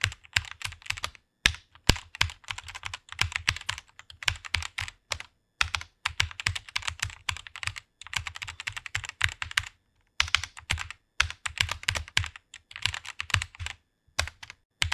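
Typing on a computer keyboard: rapid key clicks in bursts of a second or two, with brief pauses between words.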